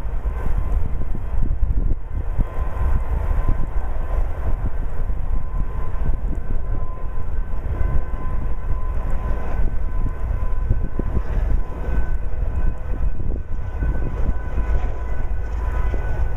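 Union Pacific doublestack freight train rolling past at a distance: a steady low rumble of container cars on the rails, with a faint steady whine above it. The rear distributed-power locomotive, a GE AC45CCTE, passes near the end.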